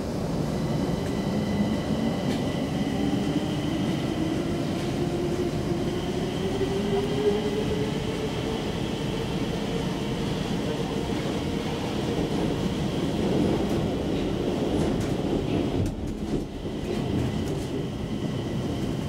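Stockholm Metro C20 train running through a tunnel, heard from inside the car: a steady rail rumble with a traction-motor whine that rises in pitch over the first several seconds as the train gathers speed, then holds steady. A brief dip in the noise comes near the end.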